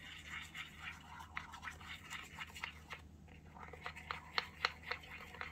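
A small utensil scraping in a miniature steel mixing bowl, then sharp clicks against the bowl, about three or four a second, near the end.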